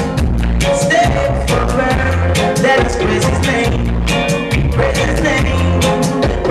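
Dub reggae played loud through a sound system: a heavy bass line under a steady beat of hi-hat ticks, with a melody line over it.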